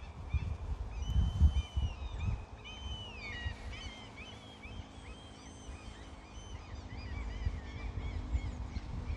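Several wild birds calling and singing at once: held whistled notes and falling glides early, then quick series of short chirps. A low rumble, strongest in the first two seconds, runs beneath.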